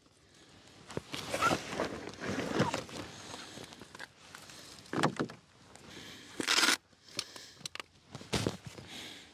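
Handling noise as portable radio gear is unpacked and set up: rustling of fabric and cables, with scattered clicks and knocks. A short, loud ripping rasp about six and a half seconds in cuts off abruptly.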